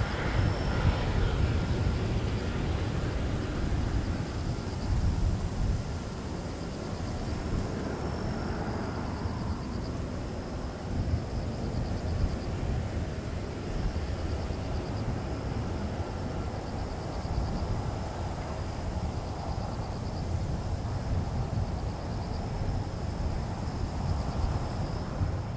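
Boeing 777-200ER airliner's jet engines running at low power as it rolls slowly and turns off the runway after landing: a steady low rumble. A thin, steady high-pitched tone sits above it.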